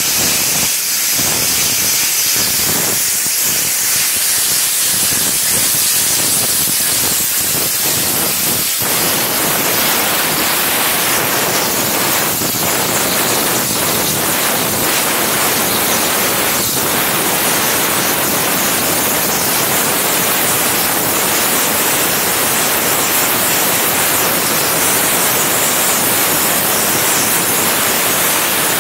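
High-pressure waterjet cutting head starting a cut into a 135 mm thick aluminium alloy block: a loud, steady hiss of the jet with water spraying and splashing out of the cut. About nine seconds in the sound fills out into a fuller, lower rush.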